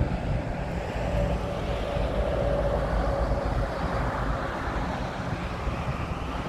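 Inland container ship passing close by: the steady low rumble of its engine, with water rushing from its bow wave that is strongest around the middle.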